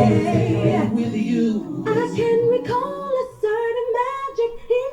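An R&B song with a sustained, melismatic sung vocal line. The bass and beat drop away in the first second or two, leaving the voice nearly unaccompanied.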